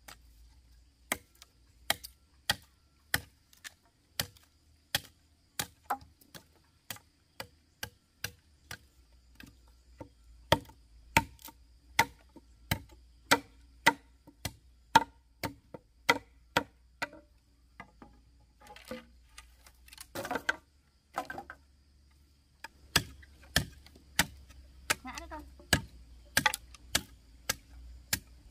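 A series of sharp chopping strikes, roughly two a second, with short pauses a little after halfway.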